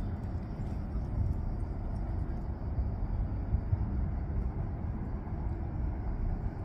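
Wind rumbling on the microphone: a low, unsteady rumble that keeps rising and falling in loudness.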